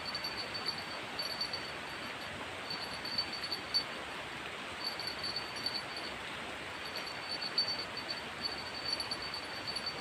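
Steady rain hiss, with a high chirring that comes and goes in pulsing runs.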